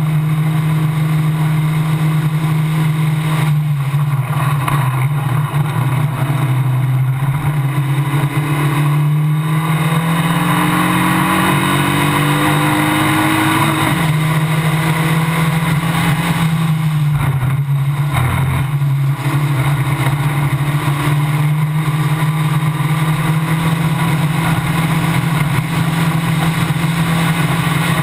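Formula Basic single-seater race car's engine running hard at racing speed, heard from the car itself. The engine note holds high and steady, rises in pitch through a stretch in the middle and drops sharply about halfway through, with brief dips in revs a few more times as the driver lifts or shifts.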